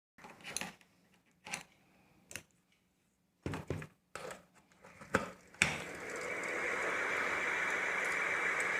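A few clicks and knocks, then a sharp click about five and a half seconds in, after which the ceiling fan's steady whoosh builds over about a second and holds. The fan runs smoothly with no knocking, since its worn shaft was built up with solder so the bearing sits tight.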